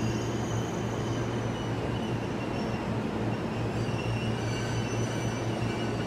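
Keihin-Tohoku Line E233 series electric commuter train pulling slowly into the platform, a steady rolling rumble with faint high-pitched wheel and brake squeals coming and going, strongest about four seconds in.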